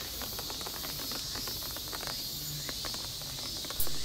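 Light rain falling: a steady high hiss with scattered raindrops pattering and dripping.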